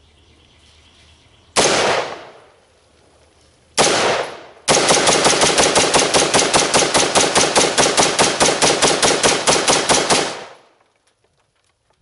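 Smith & Wesson M&P15 AR-15-style rifle fired semi-automatically: two single shots about two seconds apart, then a rapid string of about five shots a second for some five and a half seconds, each shot followed by a short echo.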